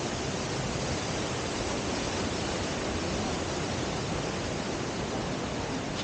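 Steady rushing noise of Dudhsagar Falls, a large waterfall, its water pouring down without a break.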